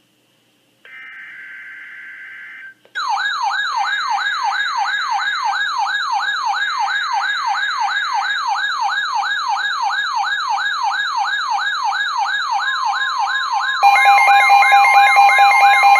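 Emergency alert signals: a short burst of digital data tones, then an electronic siren tone sweeping rapidly upward again and again, about two and a half sweeps a second. Near the end a steady, louder two-tone alert signal joins the siren.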